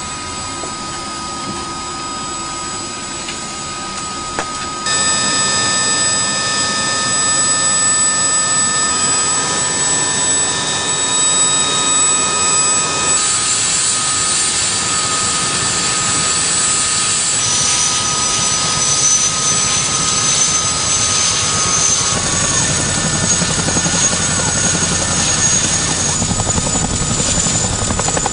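CH-47F Chinook tandem-rotor helicopter running on the ground, its twin turboshaft engines giving a steady high whine over the rotor noise. The sound gets louder about five seconds in, and the whine's pitch shifts abruptly several times.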